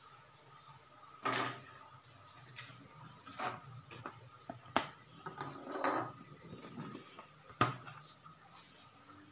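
Scattered knocks and clatter of kitchenware being handled: about five separate knocks spread over several seconds, over a faint low steady hum.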